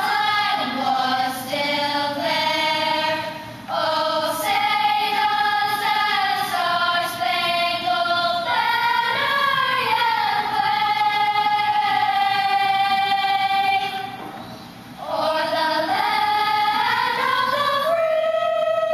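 Children's choir singing the anthem, long held notes moving from pitch to pitch, with a brief pause for breath about fourteen seconds in.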